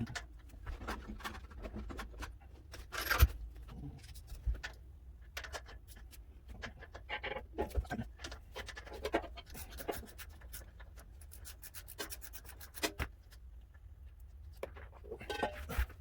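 Ratchet socket wrench clicking in quick runs as bolts are loosened, mixed with clinks and rubbing from tools and hardware being handled. There is one loud knock about three seconds in, and a long fast run of ratchet clicks near the middle.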